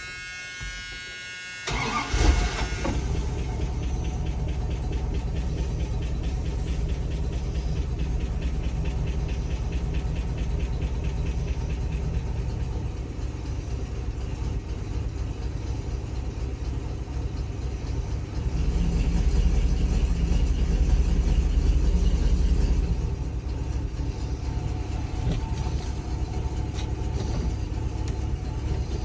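Dodge 318 V8 engine being started: a starter-motor whine for under two seconds, then it catches and settles into a steady idle. It is revved up for about four seconds past the middle, then drops back to an idle the owner calls pretty low, pointing to a carburettor in need of adjustment.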